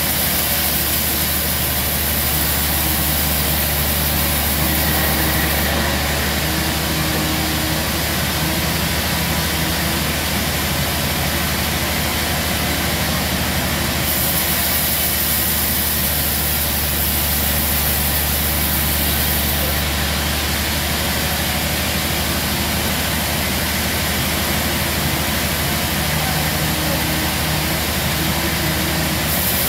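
Large vertical band sawmill running and sawing a log: a steady deep machine hum, with a high hissing cutting noise that swells for several seconds at a time, twice.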